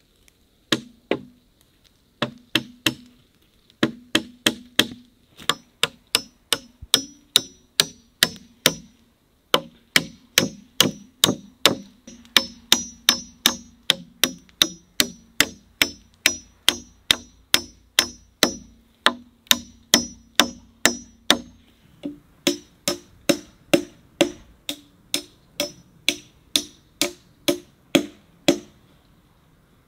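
Hammer driving nails into a pine-board frame: steady blows about two a second, in runs with brief pauses, many of them with a short metallic ring.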